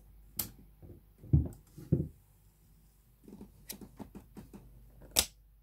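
Clicks and knocks of metal parts as the bobbin case is fitted into the shuttle of a vintage Jones M949 sewing machine and the machine is handled. A few louder knocks come in the first two seconds, then a run of small clicks, and one sharp click near the end.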